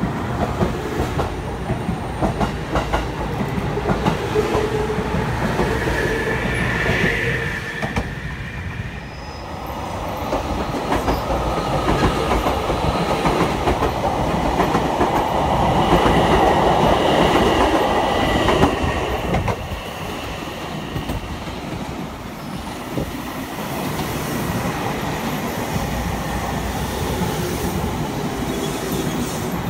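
Electric trains running past a station platform. A commuter train moves along the platform first. A white JR Kyushu limited express then passes close by with its wheels clattering over the rail joints and a faint wheel squeal, loudest about halfway through. After that a steadier run-by follows on a farther track.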